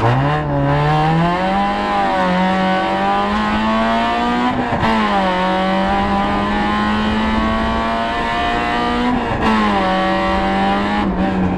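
The 1.6-litre four-cylinder engine of a rally-prepared Citroën Saxo VTS, heard from inside the cabin, accelerating hard out of a slow corner. The revs rise quickly, then climb steadily. The note dips about five seconds in and again about nine seconds in, with road and tyre noise throughout.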